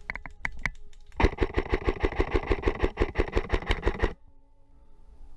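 Airsoft electric rifle firing: a few single shots, then a rapid full-auto string of about three seconds that stops abruptly.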